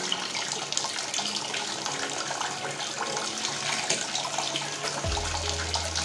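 Whirlpool top-loading washing machine filling its drum: water streaming from the inlet and splashing into the tub with a steady rush. A low hum comes in about five seconds in.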